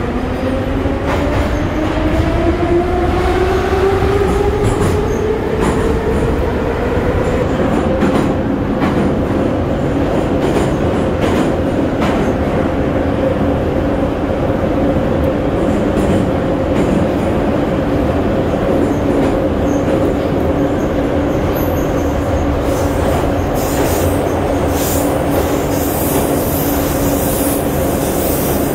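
81-717/714.5M metro train heard from inside the carriage as it pulls away and runs through the tunnel. The traction motors' whine rises in pitch during the first six seconds or so as the train accelerates, then holds steady at speed. Underneath is a loud rumble of wheels on rail, with scattered clicks over rail joints.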